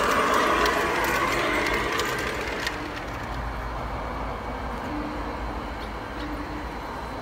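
G-scale model freight train rumbling along the garden track, its wheels and loaded hopper cars running on the rails. The rumble fades after about two and a half seconds as the train moves away, with a single click, and a quieter steady running sound remains.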